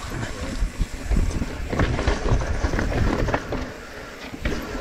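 Mountain bike riding down a rough dirt trail: tyres rolling over dirt and roots with a low rumble, and the bike knocking and rattling over the bumps, loudest through the middle.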